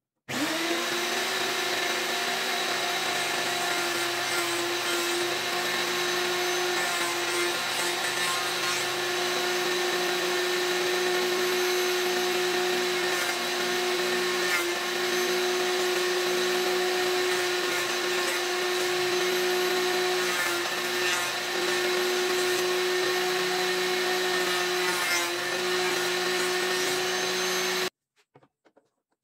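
Electric planer running steadily with a constant hum, planing a face of eucalyptus boards. The sound cuts off suddenly near the end.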